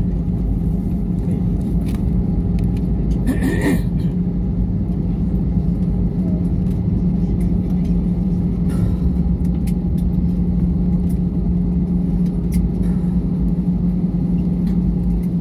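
Airliner cabin noise during the landing rollout: a steady rumble of the engines and the wheels on the runway, with a constant low engine hum.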